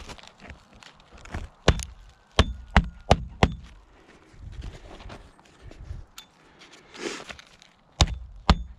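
Roofing hatchet driving roofing nails through asphalt shingles: a quick run of about five sharp strikes two to three seconds in, then two more near the end, with scuffing on the shingles between.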